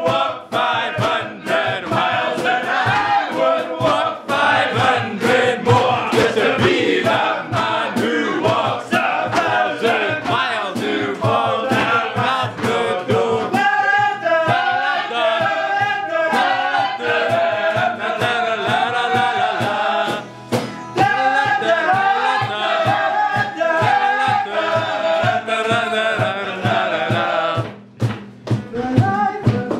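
Acoustic guitar and acoustic bass guitar strummed in a steady rhythm while several voices sing along together.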